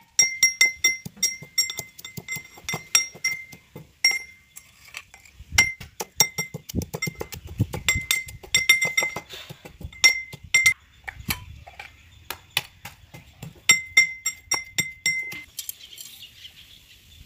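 Steel pestle pounding Marie biscuits to powder in a small stainless-steel mortar: rapid, uneven metallic clinks, each ringing briefly, stopping shortly before the end.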